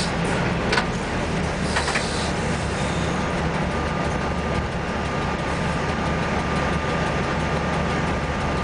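ST43 diesel-electric locomotive heard from inside its cab: the 12-cylinder Sulzer diesel engine runs with a steady drone as the locomotive rolls along the track. There are a couple of sharp knocks in the first two seconds, and a faint steady whine from about three seconds in.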